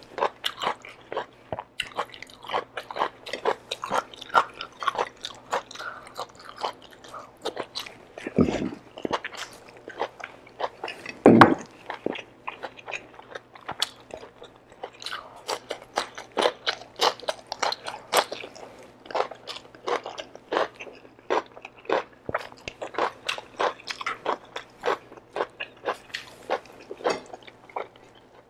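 Close-miked mouth sounds of eating beef kare-kare by hand: wet chewing and lip smacks in a steady run of small clicks. Two louder dull thumps come about eight and eleven seconds in, the second the loudest.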